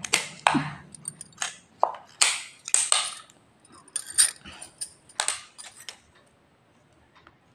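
Large tailor's shears snipping through blouse fabric in a run of short, crisp cuts, stopping about six seconds in.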